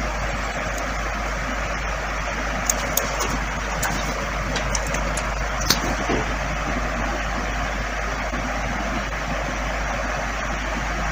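Steady rushing background noise with a low hum underneath, broken by a few short, faint clicks between about three and six seconds in.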